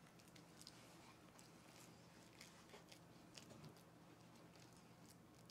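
Faint soft taps and scrapes of a wooden spoon spreading thick oatmeal batter in a metal baking pan, a few scattered clicks over a low steady room hum.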